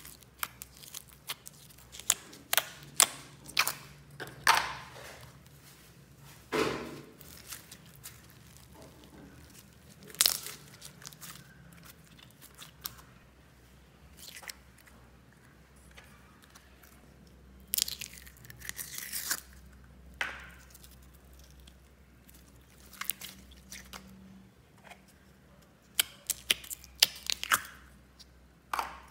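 Slime being pressed and turned out of clear plastic tubs into a basin of other slimes: irregular sticky pops, crackles and squelches, with clicks from handling the plastic tubs, some clustered in short crackly runs.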